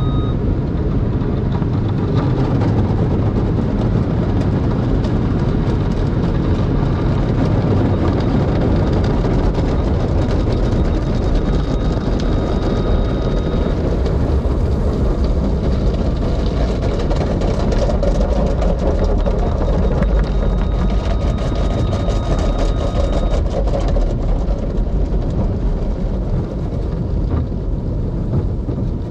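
Sonny's soft-cloth tunnel car wash heard from inside the car: cloth brushes and mitter curtains scrub and slap the body and windshield over water spray and the steady rumble of the tunnel machinery. A faint high whine runs through the first half and returns briefly later.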